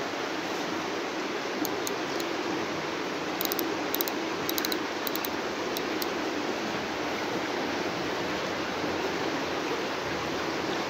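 Steady rushing of running water in a cave, with a scatter of light high clicks between about a second and a half and six seconds in.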